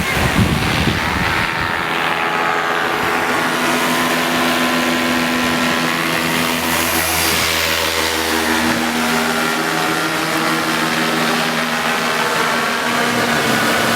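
An engine running steadily, its tones drifting slightly in pitch.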